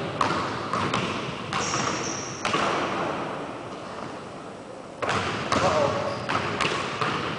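Basketballs bouncing on a hardwood gym floor: a series of sharp thuds at uneven intervals, echoing in a large gym, with a quieter gap in the middle.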